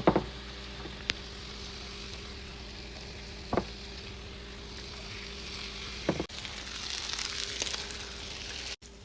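Fish frying in hot oil in a pan, a steady sizzle that grows stronger near the end, with a few knocks of a utensil against the pan.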